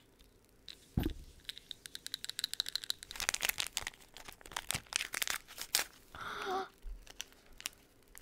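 Small plastic wrapper from a Zuru Mini Brands capsule being torn open and crinkled by hand: a dense run of sharp crackles and tearing, thinning out in the last couple of seconds.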